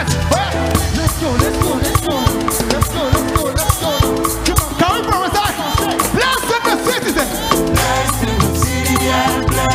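Live band playing upbeat African gospel praise music, with shakers and drums keeping a steady beat and voices singing over it. The bass drops away in the middle and comes back near the end.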